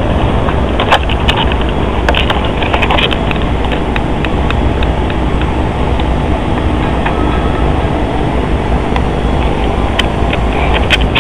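A steady, loud rumbling noise, with scattered clicks and knocks from the camera being moved on its tripod.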